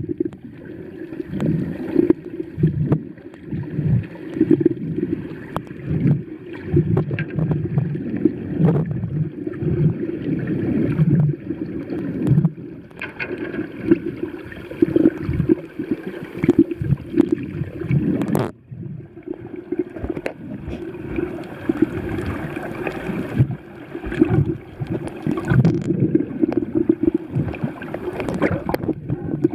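Underwater noise picked up by a camera held below the surface while snorkeling: a muffled, constantly shifting sloshing and gurgling of water moving around the camera. There is a sharp click about two-thirds of the way through, after which it is briefly quieter.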